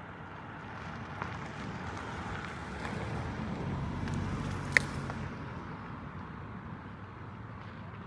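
A car passing on the street, its sound swelling to a peak about halfway and fading again, with one sharp click near the middle.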